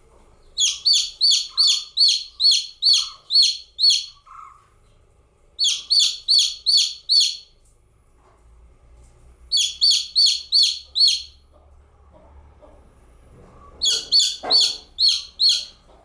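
Newly hatched chicken chick peeping loudly in four runs of rapid, high, evenly spaced peeps, about three to four a second, with short pauses between the runs.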